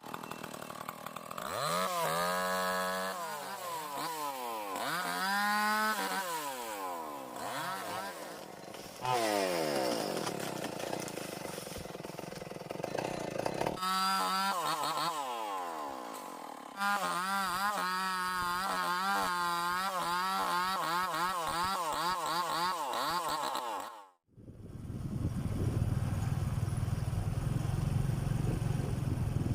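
Tecomec two-stroke chainsaw revving and cutting wood, its pitch rising and falling over and over as the throttle and load change. It cuts off abruptly near the end and gives way to a steady low rumble.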